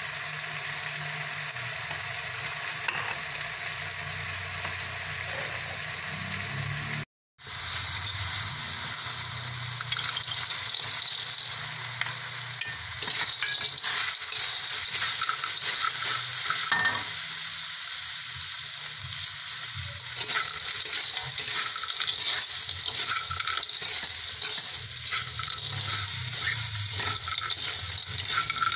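Chili paste sizzling in hot oil in a wok, cut off suddenly for a moment about seven seconds in. Then small fried impun fish are stirred and tossed with the chili paste, the spatula scraping against the wok over a louder, brighter sizzle.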